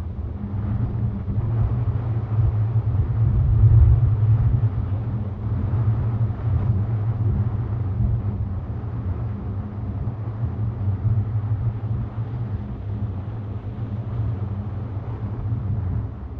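Steady low rumble of wind buffeting the microphone over the wash of breaking surf, swelling loudest about four seconds in.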